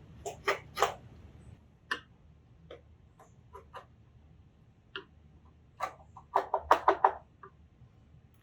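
Scattered sharp clicks and knocks of hand carving chisels working wood, with a quick run of knocks about six to seven seconds in.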